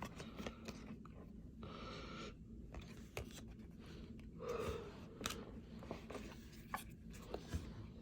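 Faint rustling and light clicks of trading cards being handled and flipped through, with a short stretch of papery sliding about two seconds in.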